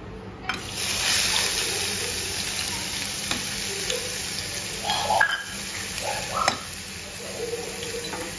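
Chopped onions dropped into hot oil in a steel pot, setting off a sizzle that starts suddenly about half a second in and carries on steadily. A couple of sharp metal clinks sound in the middle of the frying.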